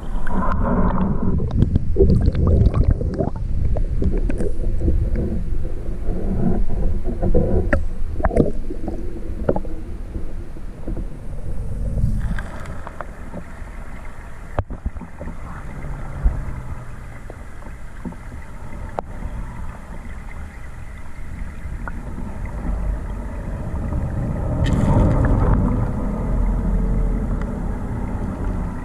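Stream current heard from underwater: a muffled low rushing and gurgling with faint wavering tones, swelling in the first third and again near the end, and a few sharp clicks in the quieter stretch in the middle.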